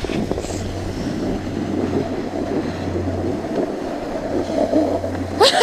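Steady scraping rumble of a snowboard sliding down packed snow.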